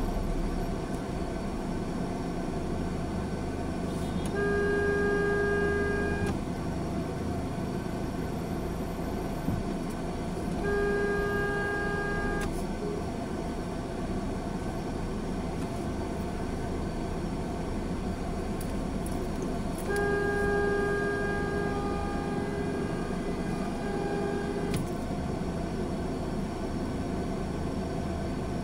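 Slow, congested traffic heard from inside a car: a steady engine and road rumble, with a vehicle horn sounding four times, three long toots of about two seconds each and a shorter one near the end.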